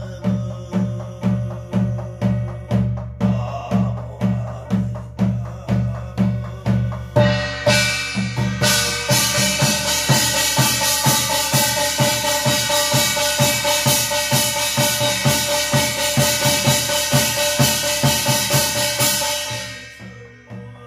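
Korean shaman's barrel drum (buk) beaten in a steady ritual rhythm of about two strokes a second. About eight seconds in, ringing brass percussion joins and the beat quickens; both stop near the end.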